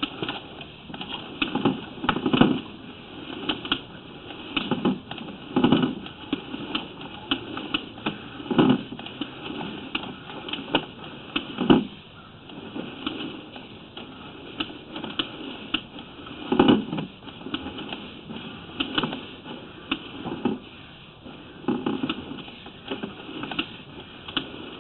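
Sewer inspection camera's push cable and reel being worked: an irregular run of clicks and clacks, a few a second, with heavier knocks every couple of seconds.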